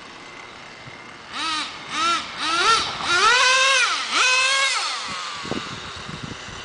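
Small nitro engine of a Traxxas Jato 3.3 RC truck revving in about five surges, its pitch rising and falling with each throttle blip. The last two surges are the longest and loudest, then the sound drops away.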